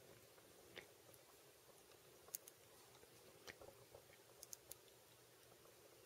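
Near silence broken by a few faint, scattered clicks from fingers working thin copper fish wires and a cord through a MagSafe cord's plastic strain relief.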